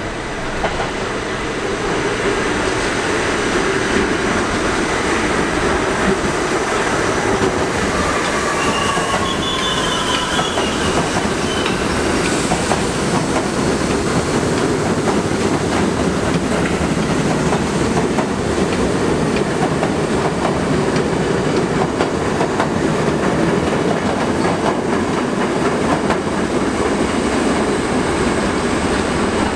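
NYC subway train running through the station, its wheels rumbling and clattering on the rails, louder over the first two seconds as it draws near and then steady. A brief high squeal rises over the rumble about eight to eleven seconds in.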